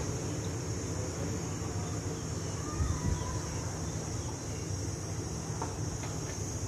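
Outdoor town ambience heard from high up: a steady low rumble of distant traffic under a steady high-pitched hiss.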